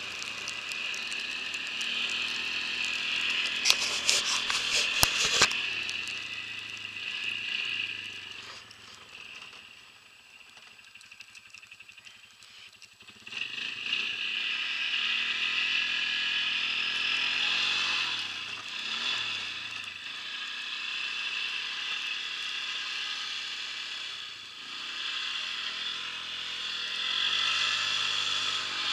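ATV engine running and revving through snow, its pitch rising and falling as the throttle changes. A run of sharp clicks comes about 4 to 5 seconds in. The engine drops low and quiet for a few seconds around the middle, then revs up again.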